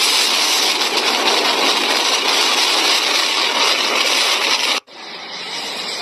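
Strong storm wind blasting a phone's microphone: a loud, steady rush of noise that cuts off abruptly near the end, leaving a much quieter hiss.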